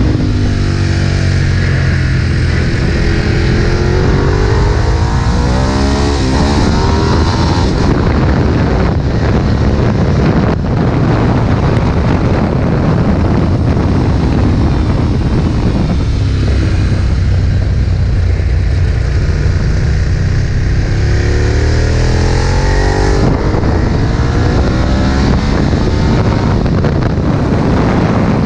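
Ducati 1098's L-twin engine heard onboard at full track pace, pulling up through the revs in long rising sweeps twice, over a heavy rush of wind on the microphone.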